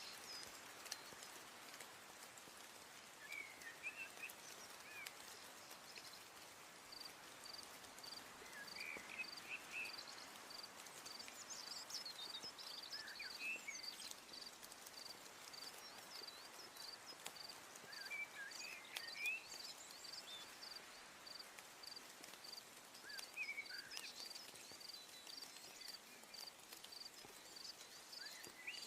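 Faint outdoor ambience: birds chirping in short bursts every few seconds, and from about a quarter of the way in a high, evenly repeated note about twice a second, over a low hiss.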